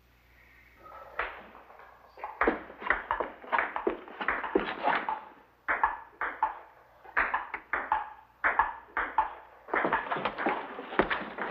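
A busy clatter of short, sharp knocks and clicks in quick clusters, starting about a second in.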